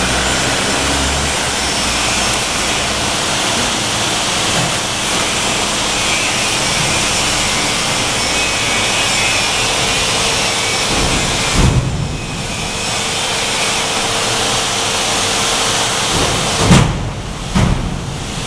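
A loud, steady rushing noise with no clear pitch, joined about halfway by a faint steady hum. A short thump comes about two thirds of the way through, and two more near the end.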